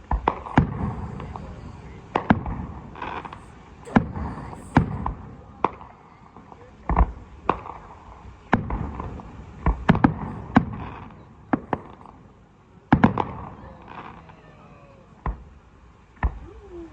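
Aerial fireworks going off in a string of bangs, some in quick pairs and clusters, each with a booming echo, with crackle between them.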